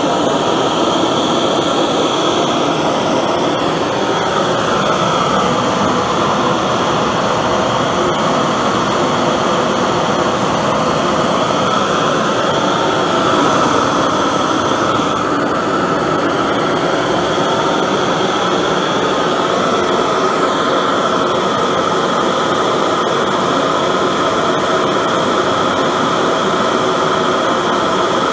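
A 500,000 BTU high-velocity forced-air propane forge burner running at full blast. Its flame and air jet make a loud, steady rushing roar that stays even throughout.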